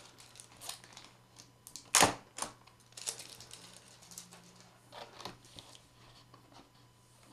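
Protective plastic film being peeled off a new keyboard: scattered crackles and handling taps, the sharpest about two seconds in.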